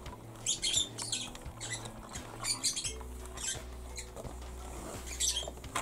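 Small plastic pieces of a Polly Pocket playset being handled and pushed into place: irregular light clicks and scrapes of hard plastic.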